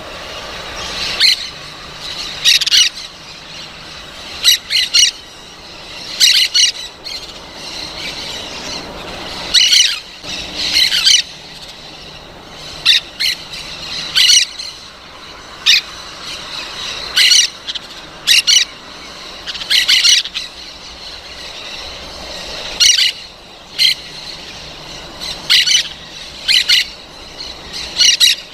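Parrot squawking: short, loud, harsh calls repeated every second or two, often in quick pairs or triplets.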